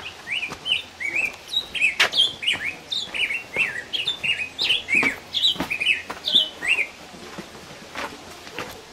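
A small bird calling in a quick run of short chirps, about four a second, stopping about seven seconds in. Footsteps on the trail sound faintly underneath.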